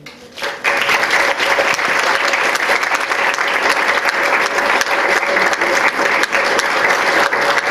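Audience applauding, a dense crackle of many hands clapping that starts about half a second in and keeps up steadily.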